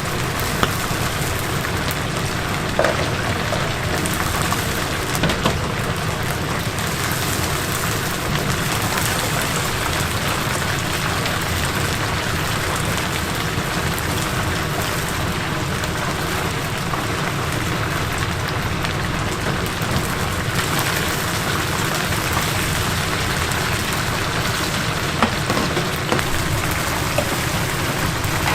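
Chicken pieces deep-frying in hot oil: a steady, dense sizzle with a few small pops.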